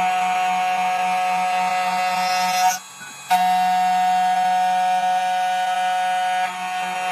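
2M2 Tank 2 Pro CNC key cutting machine running with a steady high whine. It stops for about half a second around three seconds in, then starts again.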